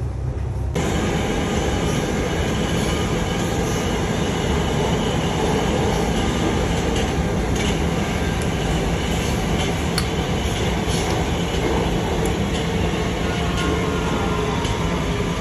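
Driverless Alstom Metropolis metro train of Budapest's M4 line running through a tunnel, heard from inside the carriage: a steady loud rushing rumble with a low hum and a few faint clicks. It starts abruptly about a second in.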